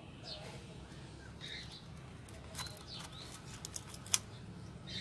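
Light metallic clicks and ticks from a stainless worm-drive hose clamp band being handled and wrapped around the piston rings, used as an improvised ring compressor. A run of sharp clicks starts about halfway in, and the loudest comes near the end.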